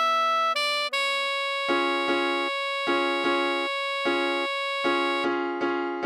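Computer-generated tutorial playback of a pop song melody over keyboard chords: a few quick melody notes, then one long held note, while short electric-piano-like chords repeat beneath in a syncopated rhythm.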